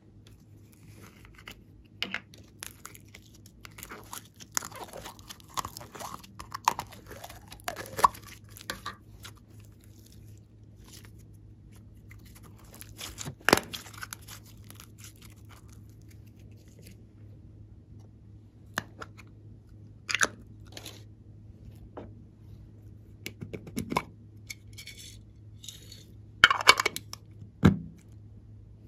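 Soft modelling clay being pulled apart and squeezed by fingers, with scattered clicks and crackles from handling its plastic tub. Short sounds come with quiet gaps between them, and the loudest crackles bunch together near the end, over a faint steady hum.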